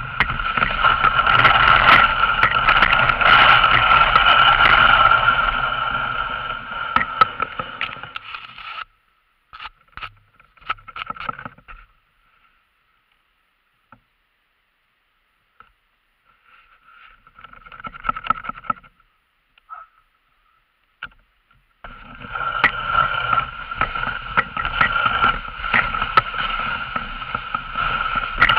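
Dog sled runners scraping and hissing over a packed snow trail as the team pulls at speed. The sound cuts out almost completely for long stretches in the middle, with only short patches, before returning about twenty-two seconds in.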